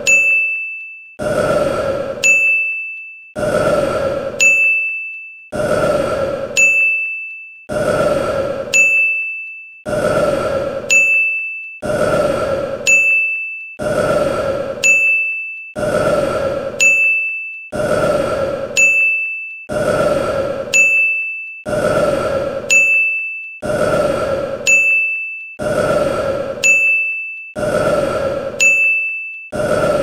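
A man's burp looped over and over, about once a second, each burp followed by a high bell-like ding that rings and fades until the next burp.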